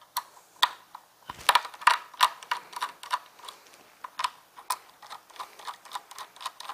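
Small screwdriver turning out the tiny screws that hold a graphics card's backplate to its circuit board: light, irregular clicks and ticks, a few a second.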